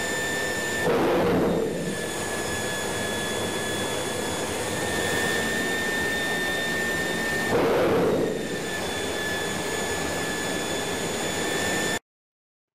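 Large marine turbocharger running with a steady high whine over a rush of air, broken twice by a loud surge lasting about a second, about a second in and again near eight seconds in: compressor surging. The sound cuts off suddenly near the end.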